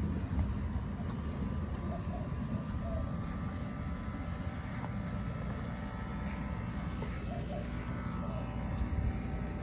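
Steady low rumble of outdoor background noise, with a few faint short calls, like distant birds, about two seconds in and again about seven seconds in.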